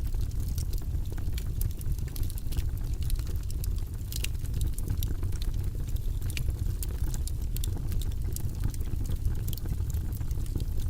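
Wood logs burning in a fireplace: irregular sharp crackles and pops over a steady low rumble of the flames.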